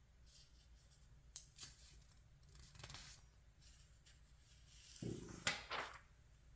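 Magazine pages being handled and turned: faint paper rustles and light ticks, then a soft thud and two sharper page swishes about five seconds in.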